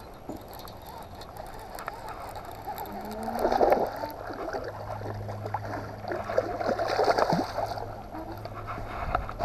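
A largemouth bass being reeled in on a baitcasting reel. The line hums steadily, and the hooked fish splashes at the surface about three and a half seconds in and again around seven seconds.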